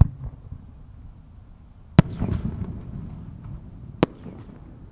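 Three sharp bangs of aerial firework shells bursting, about two seconds apart; the middle bang is followed by a longer rumbling echo with some crackle.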